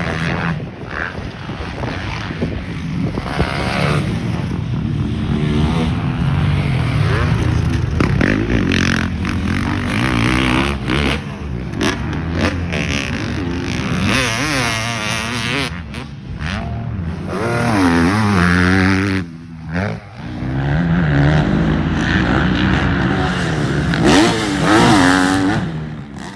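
Dirt bike engine running and revving as it is ridden, its pitch climbing and falling again and again, with a short lull about three quarters of the way through. The sound cuts off suddenly at the end.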